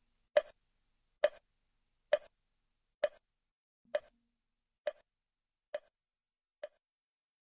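Wooden fish (mõ) struck in an even beat of about one knock a second, eight short hollow knocks that grow gradually quieter and stop.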